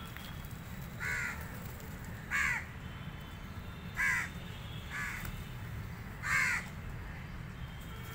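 Crows cawing: five short, harsh caws spread over about six seconds, over a steady low background rumble.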